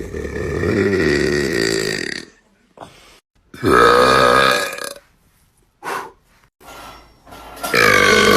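Boys burping: a string of loud, drawn-out burps from separate clips cut together, three long ones of a second or two each with a few short burps in between, each cut off abruptly.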